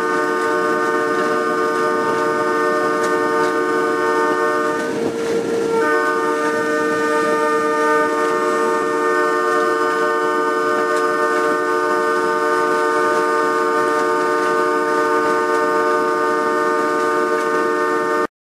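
Multi-tone railway horn sounding long held blasts, a warning on approach to a road crossing. It breaks off briefly about five seconds in and cuts off suddenly near the end.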